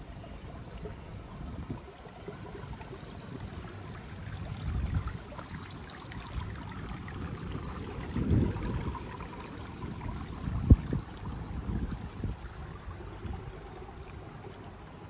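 Flowing water with gusts of wind rumbling on the microphone, and one sharp thump about two-thirds of the way through.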